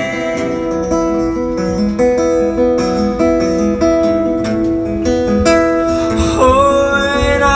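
Acoustic guitar playing a melodic line of single notes between sung lines. A singing voice comes back in with a note sliding up near the end.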